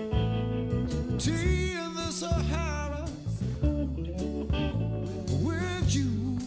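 Band music: a singer holds a long, wavering note on the word "tea" over guitars and a low bass line.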